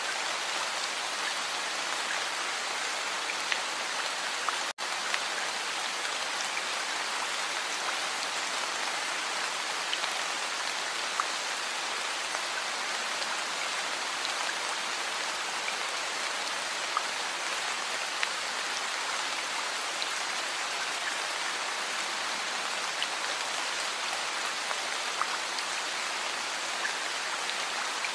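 Heavy rain falling steadily in a dense, even hiss, with scattered louder individual drops ticking through it. The sound cuts out for an instant about five seconds in.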